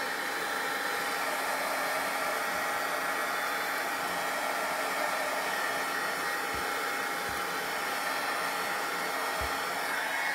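Handheld embossing heat gun running steadily, its fan blowing hot air. It is rewarming two coats of gold embossing powder already set on a paper die-cut, to make it warm and pliable again.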